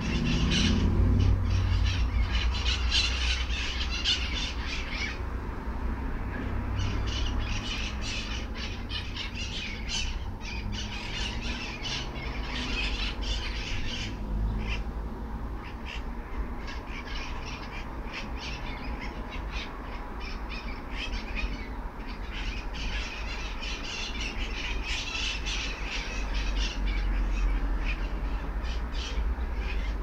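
A flock of mitred parrots squawking: rapid, harsh, repeated calls in long bouts with short lulls between them, over a steady low rumble.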